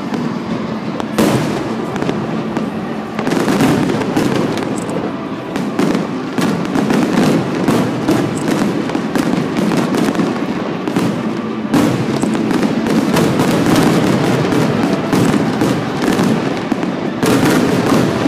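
Fireworks display in a dense barrage: rapid, overlapping bangs and crackling shell bursts that go on without a break, with heavier volleys about a second in, around three seconds, and again near twelve and seventeen seconds.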